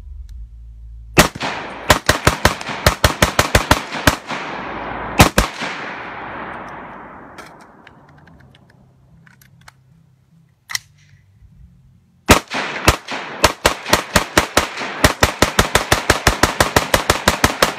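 Smith & Wesson AR-15 rifle fired semi-automatically in rapid strings, several shots a second, each crack followed by a long rolling echo. Firing stops for several seconds, with a few light clicks in the pause, then resumes in a faster, steady string.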